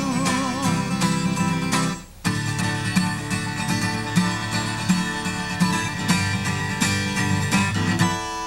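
Solo acoustic guitar strumming chords in a steady rhythm, with a brief break about two seconds in and a chord left ringing near the end.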